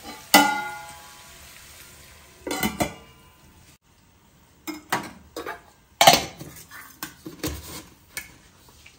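Stainless-steel kitchenware clattering: a clang with a ringing note about half a second in, like a steel lid set on a frying pan. Then a run of knocks and clinks of steel bowls, lids and spoons on the counter, the loudest about six seconds in.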